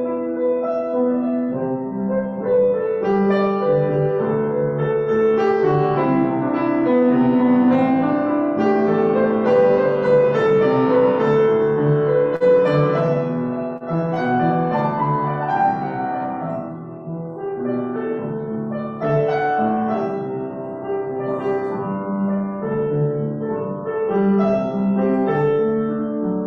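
Solo piano music, with chords and a melody line.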